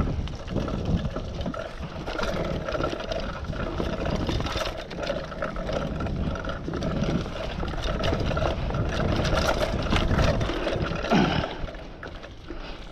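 Mountain bike rolling fast down a leaf-covered dirt singletrack: tyres crunching over dry leaves and dirt, the bike rattling over bumps, with a steady rumble of wind on the microphone. It gets quieter near the end.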